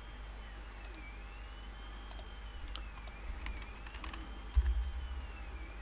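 Quiet room tone: a low steady electrical hum and a faint high whine that rises and falls, with a few soft computer-mouse clicks in the middle.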